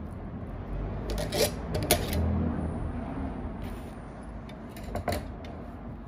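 A metal spoon clinking and scraping against a plate of bean stew while eating: a few separate sharp clinks, the loudest just before two seconds in, and two more close together about five seconds in.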